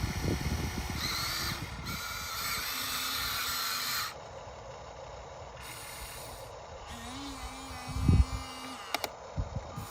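RC excavator's small electric motor and hydraulics whining hard for about three seconds, then cutting back sharply, with a fainter hum later and a single thump near the end.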